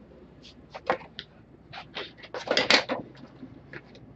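Handling noise: a scattering of short scrapes and rubs, with the loudest cluster about two and a half to three seconds in.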